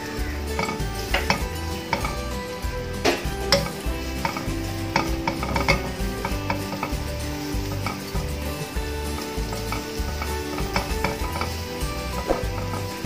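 Slivered ginger sizzling in hot oil in a wok as it is stirred with tongs, with frequent sharp clicks and scrapes of the tongs against the pan.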